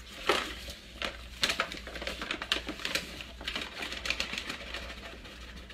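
Flour being scooped out of a paper flour bag with a measuring cup: a run of rustles, scrapes and light knocks as the cup digs in and the bag crinkles.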